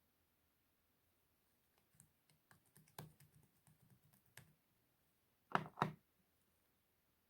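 Slime being pressed and worked by hand: small scattered clicks and pops, then two louder squishes in quick succession about five and a half seconds in.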